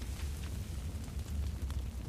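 Campfire burning: a low steady rumble with a few sparse crackles from the burning wood.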